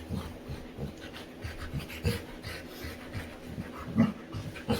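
Labrador panting during play, a quick run of short breaths with a louder one about four seconds in.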